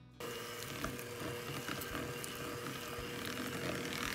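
Electric hand mixer switched on a moment in, running with a steady motor hum as its twin wire beaters whip softened cream cheese and butter in a glass bowl, the beaters ticking now and then against the glass.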